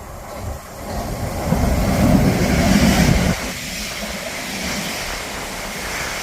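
Train passing through the station: a low rumble builds to its loudest for a couple of seconds, drops off abruptly a little past halfway, and gives way to a steady rushing noise.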